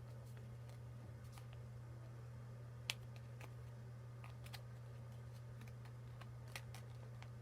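Faint scattered clicks and light handling sounds of trading cards being slid into plastic card sleeves, with one sharper click about three seconds in, over a steady low hum.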